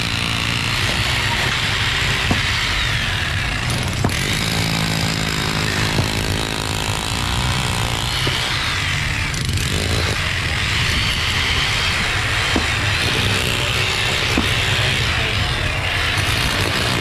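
Corded electric rotary hammer with a chisel bit breaking up a concrete curb, running steadily and continuously.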